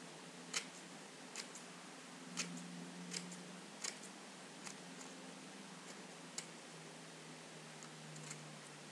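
Scissors snipping through thin paper: about eight short, sharp snips at irregular intervals, a second or so apart.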